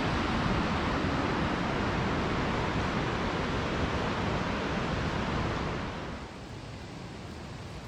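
Whitewater of the Wenatchee River rushing, swollen with spring run-off: a steady wash of noise that turns quieter and duller about six seconds in.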